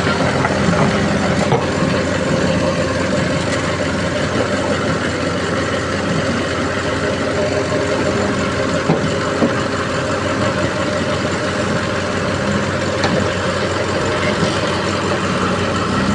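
Engine of heavy earthmoving machinery running steadily.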